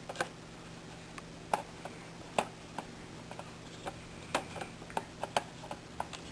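Irregular light clicks and taps of plastic against plastic as a Sony VAIO laptop is handled and its battery is seated back into the case, about a dozen in all with uneven gaps.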